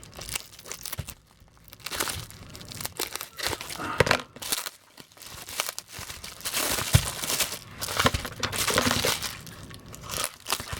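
Packing material crinkling and tearing in irregular bursts as a wrapped toy is unwrapped by hand, with a couple of sharp knocks.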